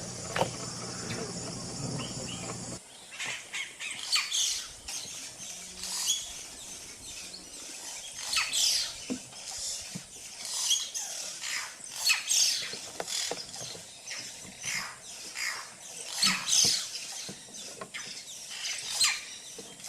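Yellow-rumped caciques calling: many short, repeated calls that sweep up and down in pitch and overlap one another. A steady hum fills the first few seconds, then cuts off as the calls begin.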